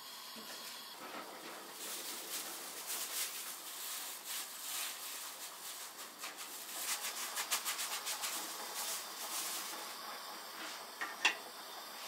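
Plastic-gloved hands mixing food in a stainless steel bowl: rhythmic rustling and rubbing strokes, about four a second at their most regular. A single sharp tap comes near the end.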